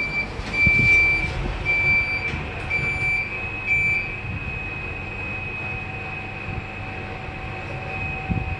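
EM-BLT passenger lift: five beeps on one pitch, about a second apart, as the doors close. Then a steady high whine and a low hum as the car starts travelling up.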